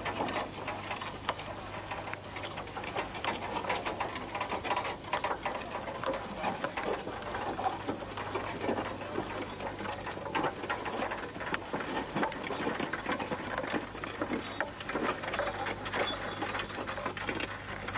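Fowler steam ploughing tackle at work: a continuous, irregular mechanical rattling and clicking, with a faint steady hum underneath.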